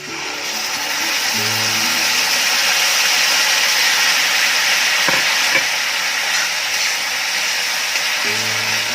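A sauce mix of tomato ketchup, soy sauce and red chilli sauce poured into hot oil with fried onions and capsicum in a kadai, sizzling loudly. The sizzle starts suddenly, swells over the first second, then holds steady.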